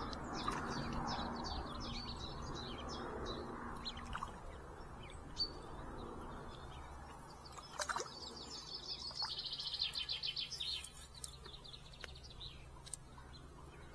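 Small birds singing around open water: short high chirps throughout, with a fast, dense trill in the middle stretch. A sharp click sounds about eight seconds in.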